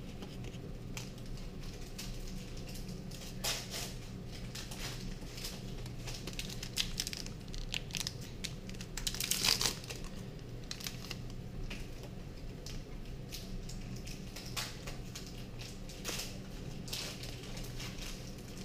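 Foil trading-card booster pack wrappers being torn open and crinkled in irregular bursts, the loudest about nine and a half seconds in.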